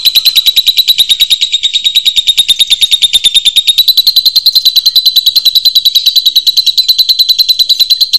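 Lovebird ngekek: a long, unbroken chattering trill of rapid high-pitched notes, about ten a second, stopping abruptly at the end.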